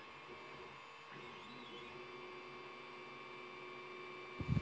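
Creality Ender 3 3D printer running mid-print: a steady low hum with faint whines gliding up and down in pitch. A couple of soft knocks come just before the end.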